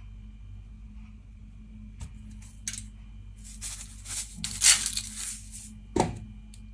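Spice shaker shaken several times, its dry seasoning rattling, loudest about two thirds of the way in; then a single knock near the end.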